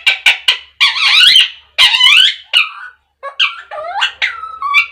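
Rose-ringed parakeet giving a rapid run of short, high-pitched squawks and chattering calls, with a brief pause about three seconds in.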